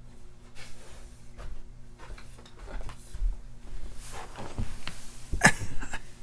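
Rummaging in a drawer for a pinning tray: scattered rustling, small knocks and clatters, with a sharper knock a little over five seconds in.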